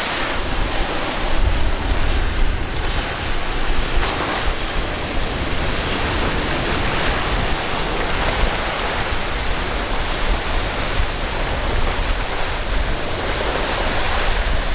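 Steady rush of surf and spraying water with gusty wind buffeting the microphone.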